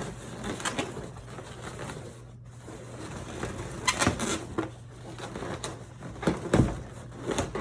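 Latex balloons being handled and tucked into place, the rubber rubbing and squeaking in short bursts with a few sharper knocks, over a low steady hum.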